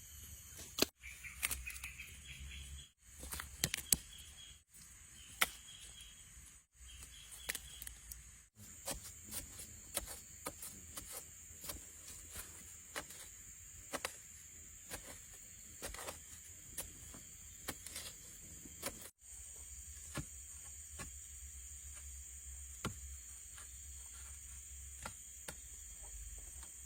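Forest ambience: a steady high insect drone, with scattered sharp ticks and taps throughout and a few short high chirps in the first several seconds.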